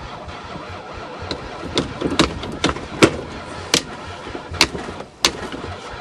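A hard-starting Chrysler van engine, dosed with ether, cranking and sputtering: a low rumble broken by irregular sharp pops about every half second to second, the engine trying to fire without catching cleanly.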